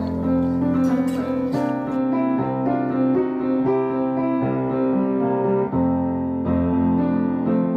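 Background piano music, a melody of held notes over a steady low bass.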